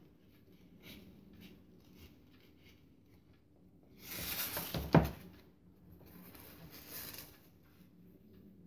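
Crepe paper rustling and crinkling as it is handled, with a louder crinkle about four seconds in that ends in a single sharp tap, and another softer rustle a couple of seconds later.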